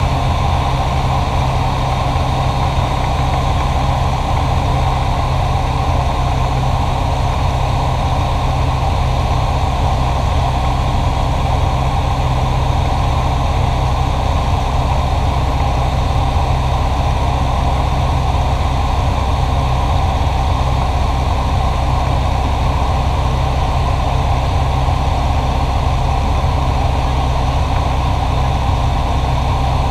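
Cessna 172SP's four-cylinder Lycoming engine and propeller droning steadily in cruise flight, heard inside the cabin. The pitch and level hold constant with no change in power.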